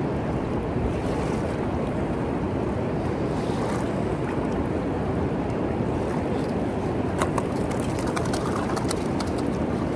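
River water rushing steadily over rocks, with some wind on the microphone. About seven seconds in comes a flurry of small splashes as the smallmouth bass goes back into the water.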